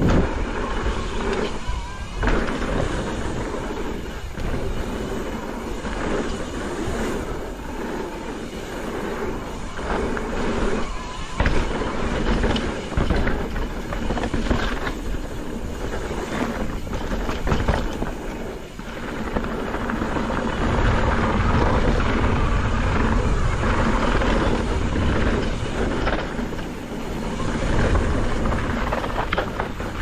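Wind rushing over an action-camera microphone and the tyres of a Specialized Status 140 mountain bike rolling fast down a rough dirt trail, with repeated knocks and clatters as the bike hits bumps. The low wind rumble grows heavier about two-thirds of the way through.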